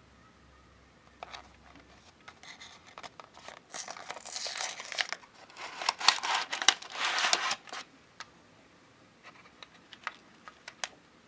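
A small paperboard candy-toy box being opened by hand and a plastic packaging tray slid out of it, with crinkling and rustling of the packaging. The handling is loudest in two stretches in the middle, followed by a few light clicks.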